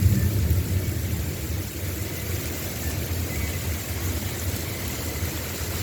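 Low rolling rumble of distant thunder from an approaching thunderstorm, loudest in the first second and then running on steadily.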